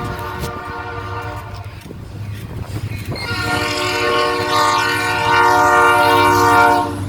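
Train horn sounding two long blasts over a steady low rumble: the first fades out about two seconds in, and a louder second blast starts about a second later and cuts off just before the end.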